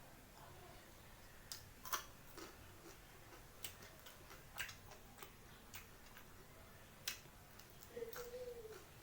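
Eating sounds: scattered soft clicks and smacks of chewing and of a spoon or fingers on the plate while a plate of very hot-chilli fried rice is eaten, with a short hummed voice sound near the end.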